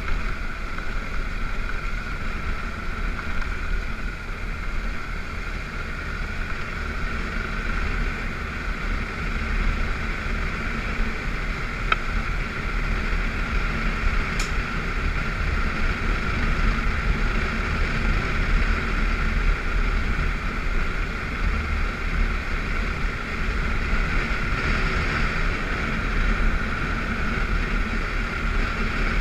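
BMW F650GS motorcycle riding steadily on a gravel road: engine running under steady load with wind and tyre noise. A faint click sounds about twelve seconds in.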